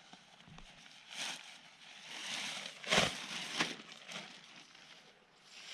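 Blue plastic tarp being unfolded and shaken out, its sheet rustling and crinkling, with a sharp, loud crackle about three seconds in.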